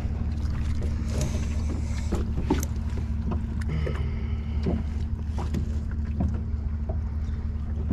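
A steady low motor hum from the boat, with scattered knocks and rustles as a striped bass (rockfish) is handled and laid on a measuring board on the deck.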